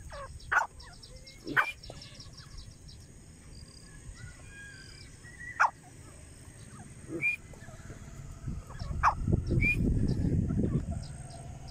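Birds calling: a handful of loud, short, sharp notes, spaced a second or more apart, over faint high twittering. A low rumble swells near the end.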